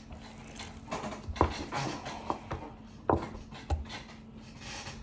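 Pretzel dough being cut and handled by hand on a table: soft rubbing with a few light knocks, the sharpest about a second and a half in and about three seconds in.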